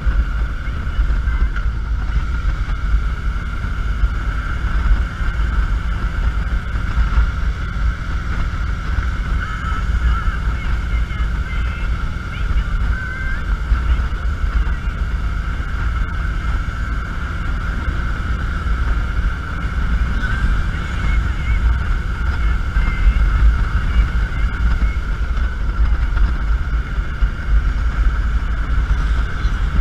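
Cruiser motorcycle riding at a steady speed: the engine running with heavy wind buffeting the camera microphone, holding steady throughout without gear changes.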